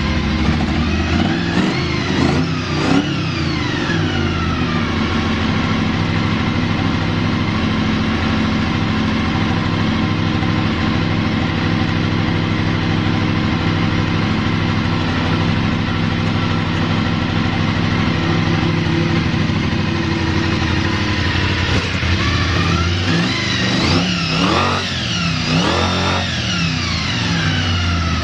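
Honda VFR400 V4 motorcycle engine idling steadily, with a short throttle blip about two seconds in and a few quick revs near the end. The idle is even, with no abnormal noise.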